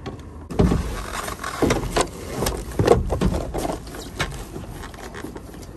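Surf ski being boarded from a dock: a run of irregular bumps and knocks as boots and body meet the hull and the seat, the strongest about half a second in and again near three seconds.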